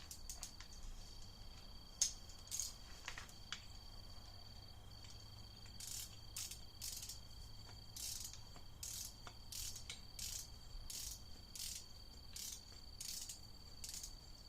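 Ratcheting torque wrench clicking as it runs down the water pump bolts on a Mazda Protege engine block, a few scattered clicks and then a steady run of about two to three clicks a second from about six seconds in.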